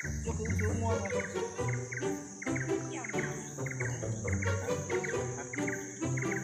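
Background music with a regular beat and short chirping notes, over a steady high-pitched insect hum.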